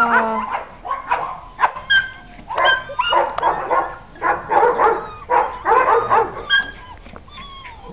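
Puppies yapping and yelping in quick, overlapping high-pitched barks, some sliding down into whines. The calls thin out over the last second or so.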